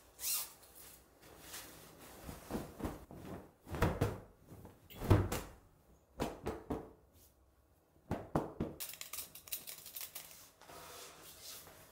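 Freshly washed curtains and a mesh laundry bag being handled on a wooden table: cloth rustling with scattered knocks and thunks, the loudest about five seconds in. A stretch of dense fabric rustling follows near the end.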